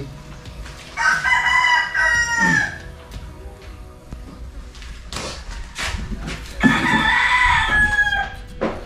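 A rooster crowing twice, each crow about two seconds long and dropping in pitch at its end, with a few faint knocks in between.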